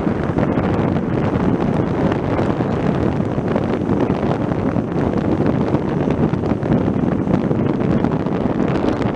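Steady road noise of a vehicle driving on a wet road: an even rush of tyres and wind that does not change.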